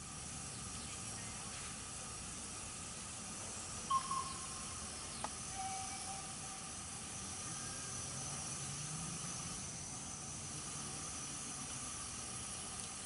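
Steady hiss of a miniature steam locomotive standing in the station with steam up. A short faint tone about four seconds in and a single click about a second later.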